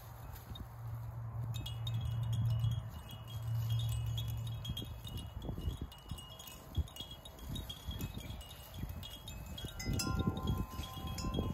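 Plastic baby-toy rattles and link chains hanging from a frame jingling and clinking in quick irregular ticks as puppies bump and tug them, with a few clearer ringing tones near the end. A low droning hum runs through the first five seconds.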